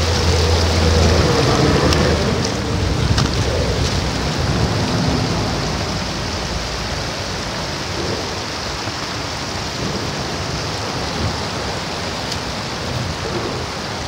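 Steady rushing noise of traffic on the Interstate 10 freeway bridge overhead, with a low hum in about the first second.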